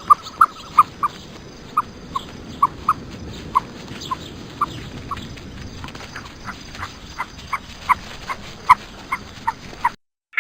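A dog giving short, high whimpering yelps over and over at an uneven pace, over steady background noise that cuts off suddenly near the end.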